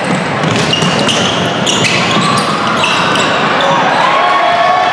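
Basketball game play on a gym floor: a ball bouncing, with short high-pitched squeaks that start and stop abruptly, over a steady hall din.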